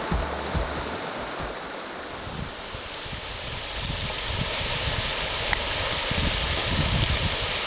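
Creek water running over rocks: a steady rushing hiss that grows a little louder about halfway through, with irregular low rumbles underneath.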